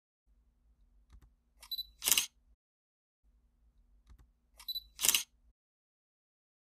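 Single-lens reflex camera shutter sound, twice about three seconds apart: each time a faint click, a short high beep, then the loud sharp snap of the shutter.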